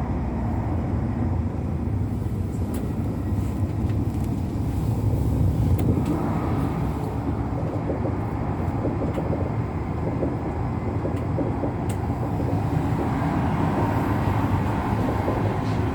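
Steady low rumble of a Hokuriku Shinkansen train running, heard inside the passenger cabin, with a few faint clicks.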